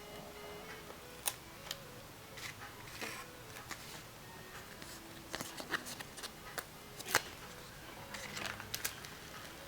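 Stickers being peeled from a sheet and pressed onto a plastic toy fridge: small irregular clicks, taps and crinkles of paper and plastic, the sharpest about seven seconds in.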